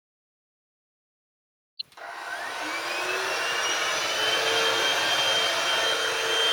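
Silence, then a click about two seconds in as a Hoover Freedom FD22L cordless stick vacuum is switched on, its motor spinning up with a rising whine and settling into a steady high-pitched run.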